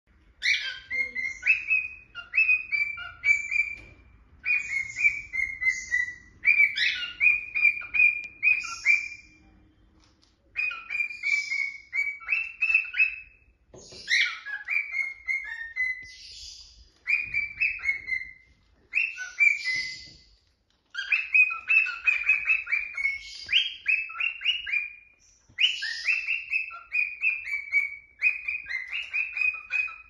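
A cockatiel singing: high whistled notes that slide downward, strung into quick phrases a second or two long, repeated again and again with short pauses between them.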